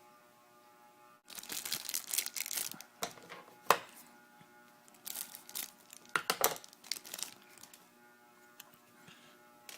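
Hands handling crinkly plastic in several bursts of rustling and crinkling, with one sharp click about a third of the way in, as a clear stand is fitted to a 1/6-scale action figure.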